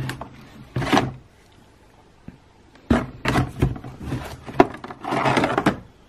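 Irregular knocks and clatters, then a longer scraping rustle about five seconds in.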